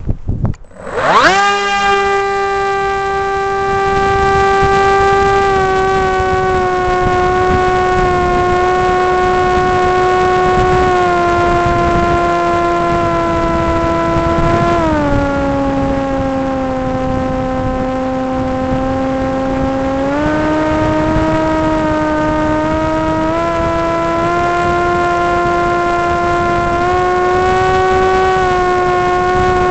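FPV quadcopter's electric motors and propellers whining, heard from the onboard camera. The pitch shoots up as it throttles up and lifts off about a second in, then holds a steady high whine. It drops lower for about five seconds near the middle, then climbs back and settles again.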